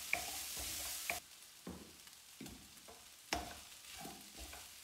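Rice frying in a pan with soy sauce, stirred with a wooden spatula: a sizzling hiss that cuts off suddenly about a second in, then scattered scrapes and taps of the spatula against the pan as it works up rice that has caught on the bottom.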